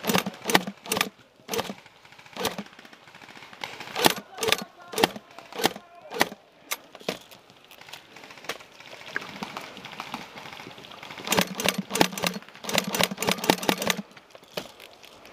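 Airsoft rifle fire: a string of separate shots, irregularly about two a second, for the first seven seconds or so. Then, about two-thirds through, a dense run of rapid shots lasting a few seconds.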